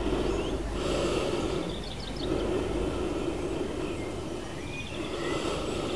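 Slow breathing close to the microphone, each breath swelling and fading over about two seconds, with small birds chirping faintly in the background.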